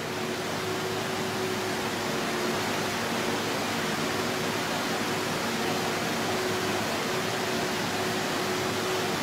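Walking excavator's engine running steadily, heard from a distance as a constant drone with a faint steady hum under an even hiss.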